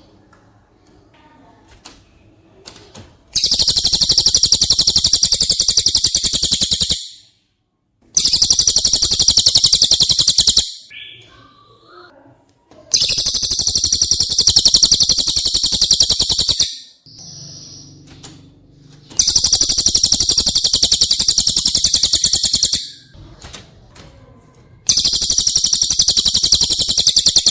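Cililin birdsong as used for training songbirds: loud, very rapid high-pitched trills in five long bursts of about three to four seconds each, with short pauses and a few faint calls between them.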